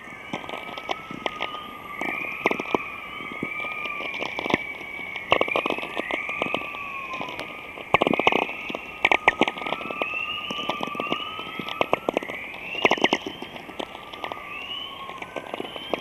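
Aurora borealis recording: irregular crackling pops and clicks, some in quick clusters, with repeated short rising whistling tones over a faint hiss. The crackles are said to be electrical charges being trapped and released in the cold air.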